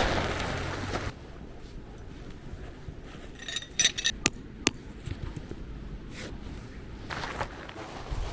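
Camping gear being laid out: a swish of fabric in the first second, then a quick run of light metallic clinks about three and a half to four and a half seconds in.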